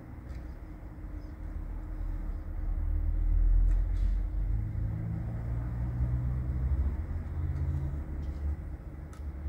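Low rumble of a motor vehicle's engine, swelling about three seconds in, with a low hum that shifts slightly in pitch midway.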